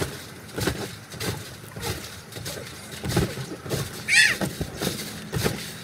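Repeated thumps of people bouncing and landing on a wet trampoline mat, with a girl's high squeal about four seconds in.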